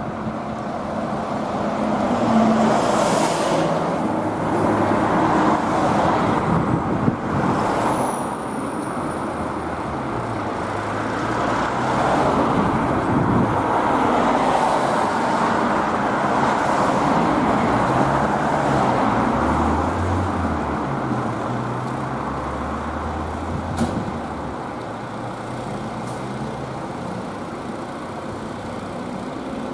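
Fire engine's diesel engine running on the road, its pitch stepping up and down with road and traffic noise around it. A brief high squeal comes about eight seconds in.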